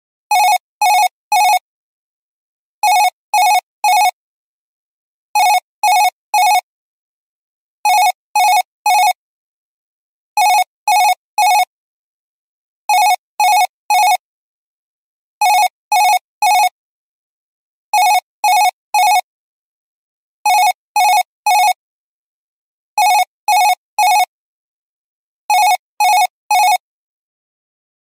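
Electronic office telephone ringtone: three quick, evenly pitched beeps, repeated about every two and a half seconds, eleven times, with silence between.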